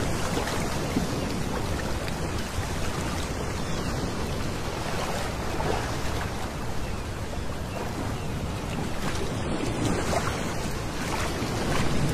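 Small sea waves lapping onto a pebble beach and washing back through the shingle, with a steady low wind rumble on the microphone.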